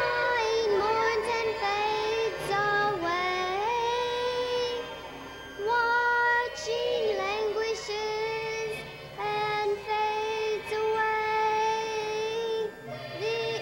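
Music: a high voice singing long held notes, sliding up and down between pitches, with short breaks between phrases.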